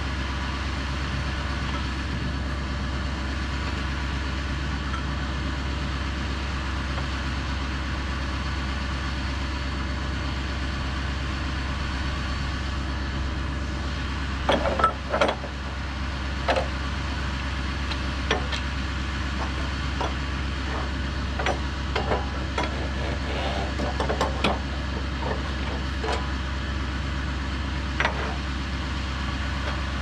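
Gas engine of a Woodland Mills HM130 bandsaw sawmill idling steadily. From about halfway, scattered sharp knocks and clacks sound over it.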